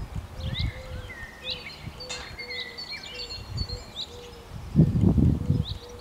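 Small garden birds chirping and singing, with short high calls scattered throughout. Irregular low rumbles run underneath, loudest about five seconds in.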